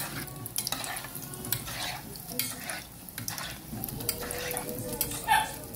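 Bolinhos de chuva sizzling as they deep-fry in hot oil in an aluminium pot, while a metal spoon stirs them and clinks and scrapes against the pot many times. There is a sharper, louder clink near the end.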